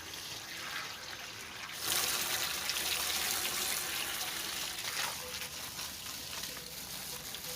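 Water running in a steady hiss, louder from about two seconds in.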